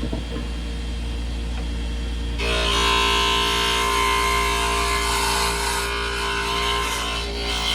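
Workshop power tool running: a steady motor hum, joined suddenly about two and a half seconds in by a louder whining, hissing machine noise.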